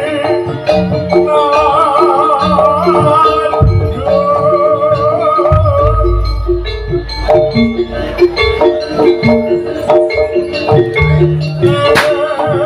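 Javanese jaranan music: repeating metallophone notes over drum strokes, with a high wavering lead melody drifting in and out.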